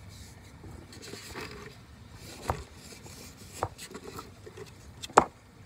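Light handling noise in a kayak: three sharp clicks or knocks, irregularly spaced, the loudest near the end, over faint rustling.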